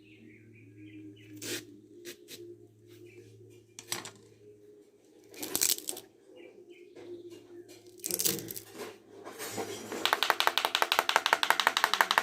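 Banana leaf being worked by hand to make sound: scattered sharp cracks and short tearing rustles, then about three seconds of loud, rapid rattling pulses near the end.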